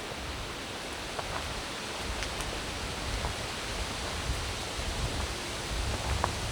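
Forest walk ambience: a steady rushing hiss, with a few faint ticks and soft low thuds of footsteps on a woodland trail.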